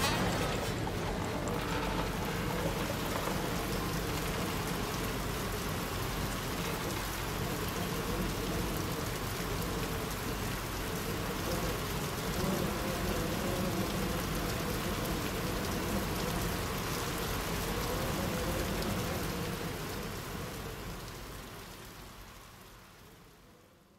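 Closing texture of an ambient music track: an even, rain-like hiss with faint sustained low tones beneath it, fading out over the last five seconds or so.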